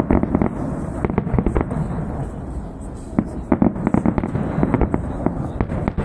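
Fireworks salute: volleys of shell bursts and crackling in quick succession. They thin out for a moment in the middle, then come thick again.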